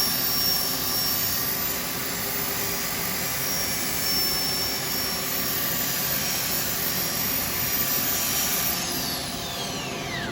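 Steady hiss and motor whine of a bowl being sanded with 180-grit abrasive on a running wood lathe. Near the end a motor is switched off and winds down with a falling whine.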